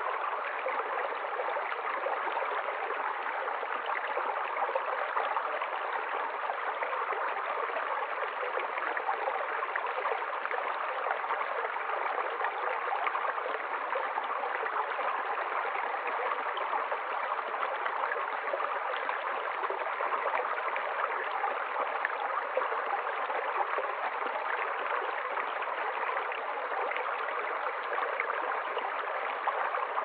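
Shallow rocky stream running over stones and a low rock step: a steady, even rush of flowing water.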